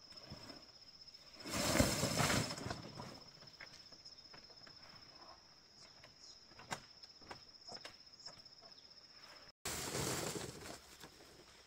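Dried corn cobs pouring out of a sack onto a bamboo platform in a loud clattering rush about two seconds in, and again near the end. Scattered knocks of single cobs fall in between, over a steady high insect trill.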